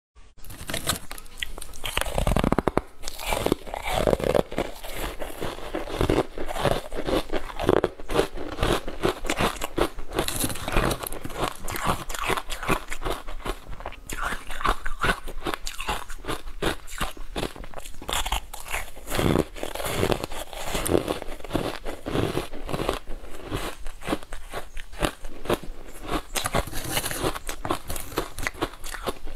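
Ice cubes coated in matcha powder being bitten and chewed close to the microphone: repeated crisp bites followed by dense, irregular crunching throughout.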